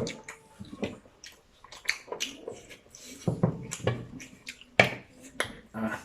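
Close mouth sounds of someone eating momos: wet chewing, lip smacks and sharp clicks that come and go in short bursts.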